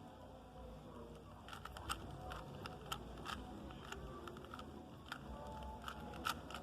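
Rubik's cube being turned quickly by hand: faint, rapid, irregular plastic clicks as its faces are twisted.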